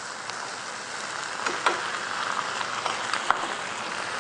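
Clams, shrimp, onion and mushroom sizzling steadily in a small pan over a gas flame, with white wine just added, and a few light clicks of the spoon or shells against the pan.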